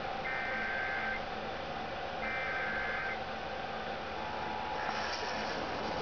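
Emergency Alert System SAME header played over broadcast radio and TV: two one-second bursts of screeching two-tone digital data about two seconds apart, the end of the three-burst header. About four seconds in, the steady two-tone EAS attention signal begins.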